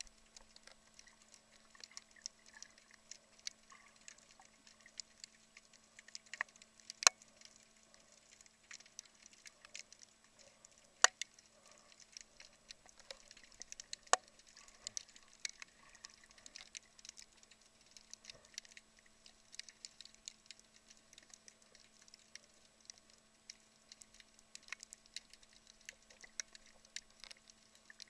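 Underwater crackle of snapping shrimp on a rocky reef: a dense, irregular patter of sharp clicks, with a few louder snaps, over a faint steady hum.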